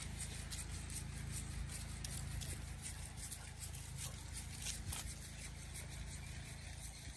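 Dry grass and fallen leaves crunching under paws and feet, a steady run of short crackles, over a low rumble of wind on the microphone.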